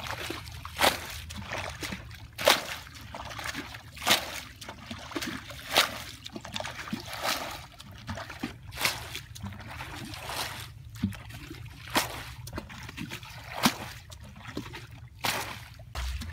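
Shallow water splashing and trickling as a plastic bucket is scooped through it, with a sharp splash about every one and a half seconds.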